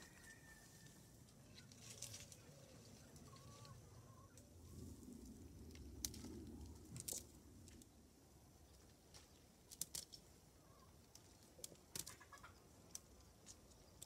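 Near silence with faint bird calls, plus scattered soft clicks and rustles as cherry tomatoes are picked from the plants into a wicker basket.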